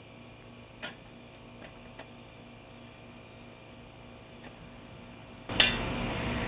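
Faint hiss from a Ring camera's narrow-band microphone, with a few soft, scattered clicks. About five and a half seconds in, a sharp click and the hiss jumps up much louder and stays steady.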